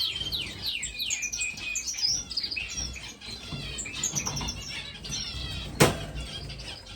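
Many caged finches of several kinds chirping and calling over one another, a busy stream of short high chirps and quick downward-sweeping notes. A single sharp knock near the end stands out above the birds.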